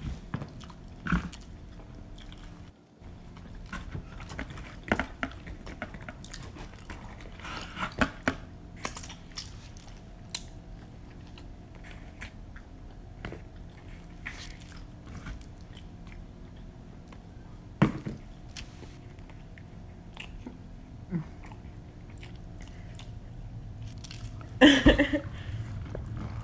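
Close-miked pizza eating: biting and chewing with scattered crunches of crust. One short, louder sound near the end.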